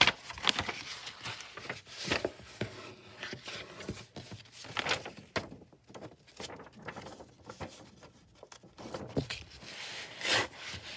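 Sheets of paper being handled on a table: short rustling and sliding sounds a few seconds apart, the loudest near the end.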